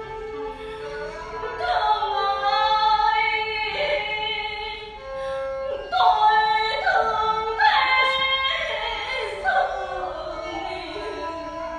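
Chèo singing: a woman sings ornamented, bending phrases over traditional Vietnamese instrumental accompaniment. A steady held instrumental note opens, and the voice comes in about a second and a half in.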